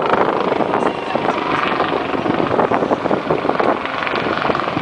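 Westland Lynx twin-turbine helicopter flying past in a display, its rotor and engine noise heard steadily.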